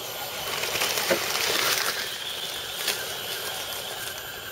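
Electric scale RC crawler trucks driving over dry leaf litter: a rustling hiss that swells about a second and a half in, with a few sharp clicks.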